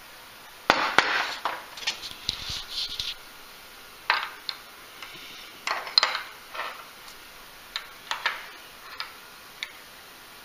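Metal spoon clinking and scraping against a china plate: a series of sharp clinks in irregular clusters, a dense run in the first few seconds, then scattered single clinks.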